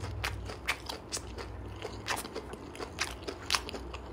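Close-miked crunchy chewing of a mouthful of crisp lettuce, with irregular sharp crunches a few times a second.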